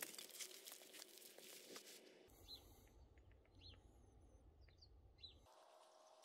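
Faint footsteps crunching on gravel for the first two seconds, then a few short, high bird chirps about half a second to a second apart.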